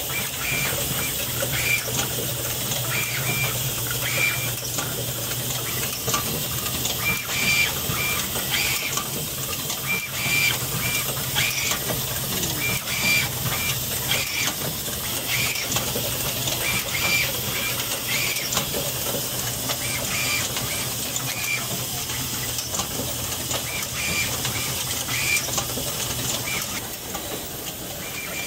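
Automated motor-part assembly machine running: a steady low hum with air hiss and small mechanical clicks, broken by clusters of short high chirps as the actuators move. The hum stops near the end.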